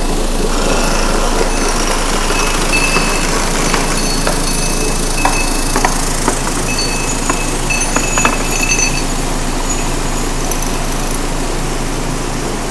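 Giant GB3 vibratory tumbler running, its triangular media churning and rattling in a loud, steady wash over a constant low motor hum. Scattered sharp clicks come from media and steel parts knocking on the separator grate.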